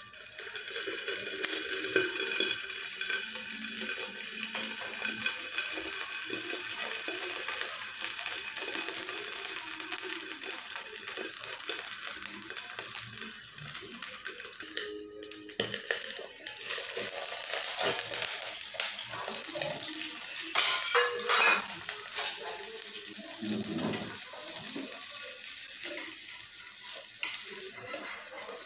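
Rice-batter pancake (chitau pitha) sizzling in an oiled nonstick frying pan under an upturned steel bowl used as a lid: a steady high hiss. Sharp metal clinks and scrapes from the steel bowl and spatula come in the second half.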